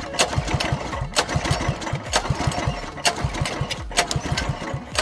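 Small mini-bike engine being cranked over by its recoil pull-start, about one pull a second, each pull spinning it through a quick series of compression pulses that die away without firing. The spark plug is not connected, so it gets no spark.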